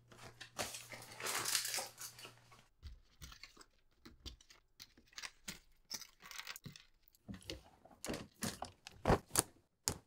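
Photos and tape being peeled and torn off a wall: a long ripping, paper-rustling sound for the first two seconds or so, then a run of short paper rustles and small clicks, ending in a few sharper clicks near the end.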